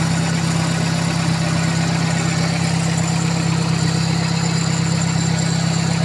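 Toyota Corolla's 2E inline-four engine running steadily with the air-conditioning on while refrigerant is being charged into the system.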